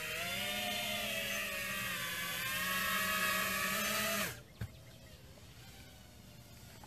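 FPV racing quadcopter's brushless motors and propellers whining steadily, then cutting out abruptly about four seconds in, followed by a single sharp click.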